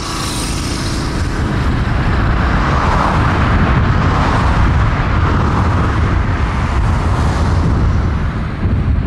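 The four GEnx-2B67 turbofans of a Boeing 747-8F freighter at takeoff thrust during its takeoff roll: a loud, steady jet roar with a deep rumble, growing louder over the first two seconds.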